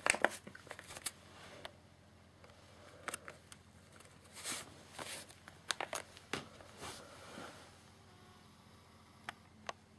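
Plastic shrink-wrap on a boxed firework cake crinkling and rustling as the box is handled and turned over: a run of short, irregular rustles and clicks, ending with two sharp clicks.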